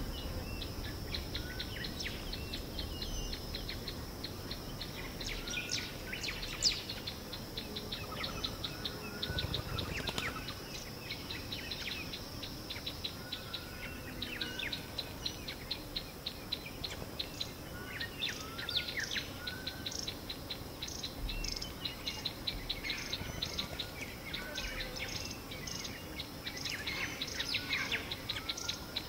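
Ambient African bush: scattered short bird chirps and calls over a steady, high insect buzz with a rapid, even pulsing trill. One brief sharp tick stands out about seven seconds in.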